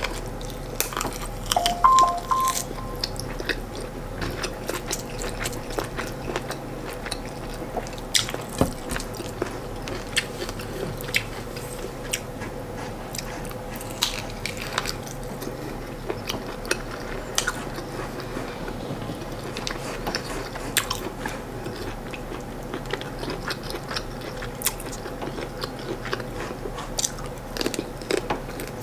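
Close-up mouth sounds of eating corn fufu and stewed chicken by hand: chewing, wet smacks and irregular clicks, over a faint steady hum.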